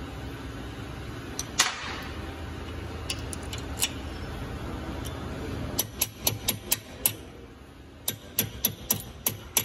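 Sharp metal taps, about three a second in two runs from about six seconds in, as a punch is tapped against the pad retaining pin of a Mercedes S400 front brake caliper to drive the pin out. A steady workshop hum sits under the first half.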